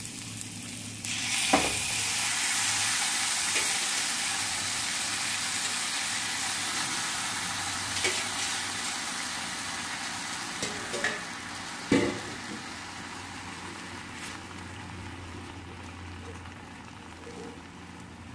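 Food frying in hot oil in a clay pot. The sizzling jumps up suddenly about a second in, then slowly dies down. A utensil knocks sharply against the pot twice.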